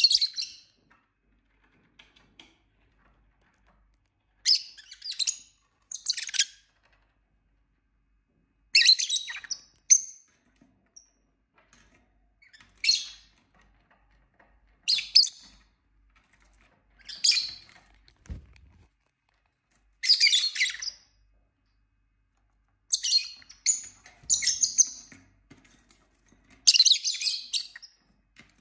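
Lovebirds giving short bursts of loud, high-pitched chirps and squawks every couple of seconds. A single low thump sounds about eighteen seconds in.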